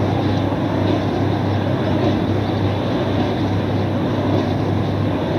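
Wind turbine noise, a recorded example: a rushing noise over a steady low hum, its strength fluctuating in time, a sound of large fluctuation strength that is perceived as very annoying.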